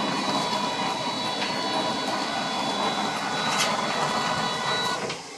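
Small electric wheel motors of a mechatronics robot running under power, a steady mechanical whine with several high tones over a noisy hum, with a sharp click a little past the middle; the sound cuts off abruptly near the end as the robot is stopped.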